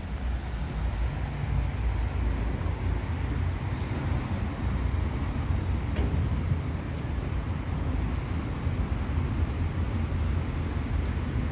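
City street traffic: a steady rumble of road vehicles, heavy in the low end.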